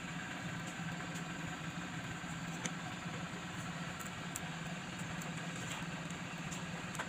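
Steady low mechanical hum, like a motor or engine running, with a few faint light ticks over it.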